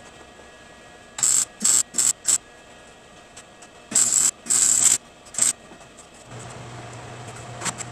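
Wire-feed (MIG) welder arc welding steel in seven short bursts, four quick ones and then three more after a pause. About six seconds in, a steady low hum starts.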